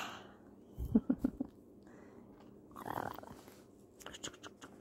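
A kitten play-fighting a person's hand, scuffling and mouthing at it. A few short low vocal sounds come about a second in, and a run of quick scratchy clicks near the end.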